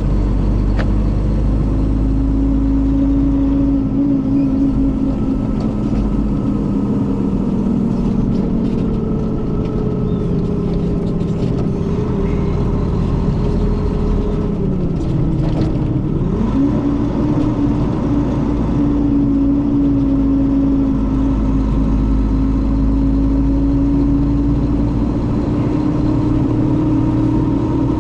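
Mercedes-Benz O500RS coach's diesel engine pulling under load, with a sound likened to the older O400RSE. Its pitch holds steady, dips about halfway through, then climbs back and holds again.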